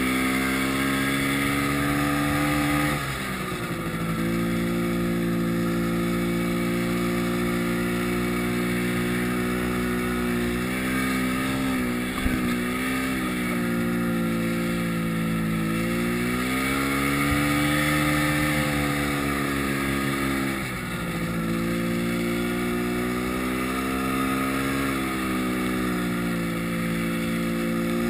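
Yamaha snowmobile engine running under way, heard from the rider's seat. The engine speed drops and picks up again several times, with one sharp knock about twelve seconds in.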